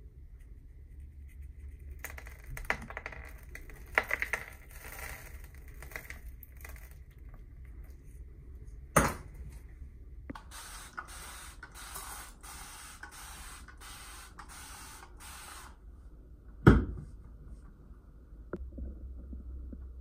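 Fine granular substrate sprinkled from a small plastic scoop onto a mud-covered rock structure: a light rustling trickle with a few taps. About halfway through comes a hiss lasting about five seconds, broken into quick pulses. Two sharp knocks stand out, the louder one near the end.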